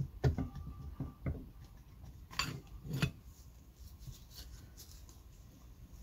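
Metal clinks and knocks as the rear end cover is worked off a Denso starter motor by hand: a handful of sharp taps, the loudest about two and a half and three seconds in.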